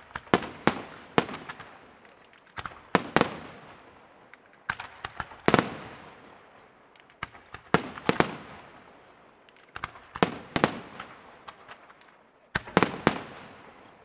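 Aerial firework shells bursting in clusters of sharp bangs, a new cluster every two to three seconds, each bang fading away before the next.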